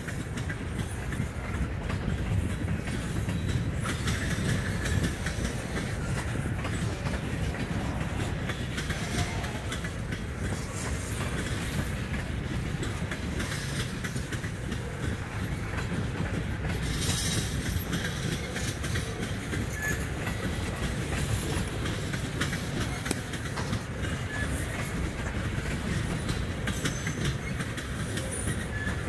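A freight train's cars, tank cars and boxcars, rolling steadily past with a continuous rumble and wheels clicking over rail joints, and a brief high-pitched squeal a little past halfway.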